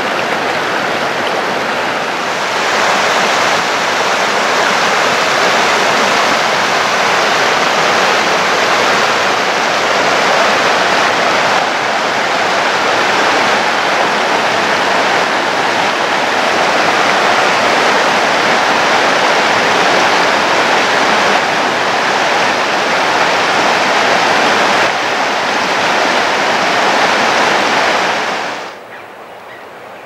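Rushing water, a steady loud noise with no rhythm to it, cutting off suddenly near the end.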